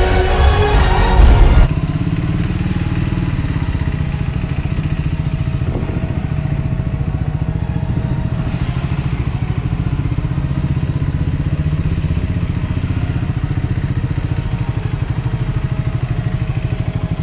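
Background music cuts off after a second or two. A Triumph Scrambler 400X's single-cylinder engine then runs steadily with an even, rapid low pulse.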